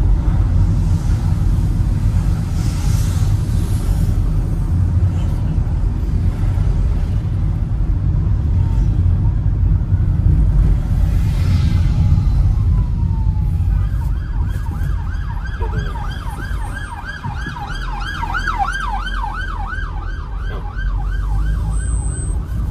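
Low steady rumble of a vehicle on the move. About 14 seconds in, an emergency vehicle's siren starts in a fast yelp, its pitch rising and falling about three times a second, and stops about a second before the end.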